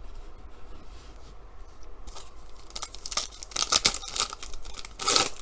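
A trading-card pack wrapper being torn open and crinkled: a run of short rips and rustles starting about two seconds in.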